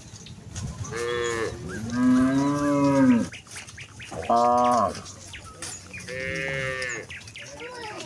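A herd of cattle mooing: about five separate moos in a row, one of them long and drawn out.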